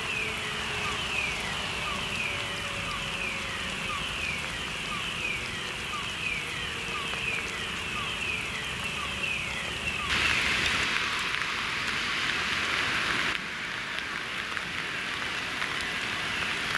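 Electronic fire-alarm sounder of a chemical plant's fire alarm system, repeating a quick falling sweep about twice a second. Under it, a distant motor siren winds down in a slow falling tone. About ten seconds in the sound changes abruptly to a louder, steady hiss.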